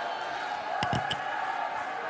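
Congregation's mingled voices praying aloud over a held music chord, with a few sharp hits a little before the middle.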